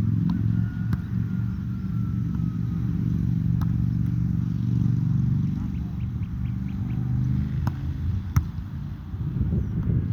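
An engine running steadily close by, a low, loud hum.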